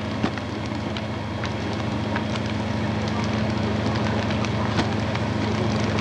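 Large wooden sawmill building burning, with irregular crackling and popping over a steady rushing noise. A steady low hum runs underneath.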